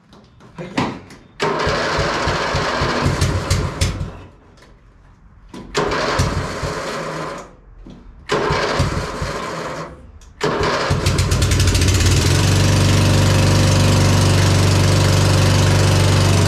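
Briggs & Stratton engine of an old riding lawn mower turned over by its electric starter in three spells of cranking. It catches a little past halfway through and settles into a steady run.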